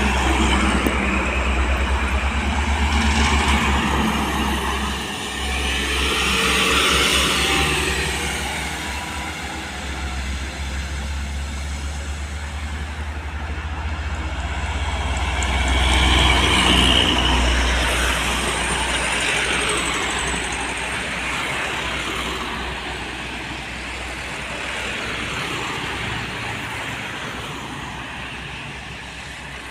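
Highway traffic: trucks and other vehicles passing one after another, their engine and tyre noise swelling and fading several times over a steady low rumble.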